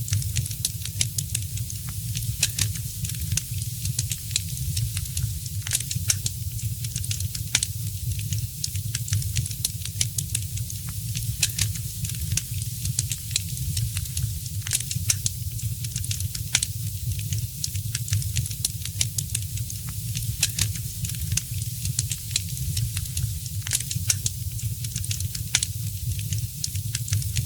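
Fireplace fire crackling, with many quick, irregular sharp snaps and pops over a steady low rumble.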